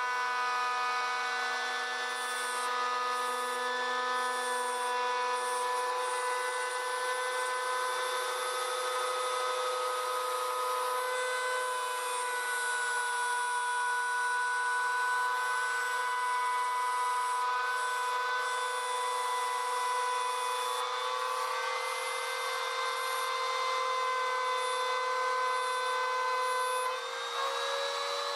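CNC router spindle whining steadily as it mills an outline through thin aluminum sheet, with a cutting hiss under the whine. Near the end the whine rises slightly in pitch.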